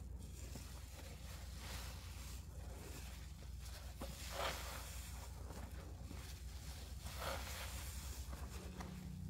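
A sponge full of shaving-cream foam being slowly squeezed, the foam squishing and crackling, with a few louder squelches about two, four and seven seconds in.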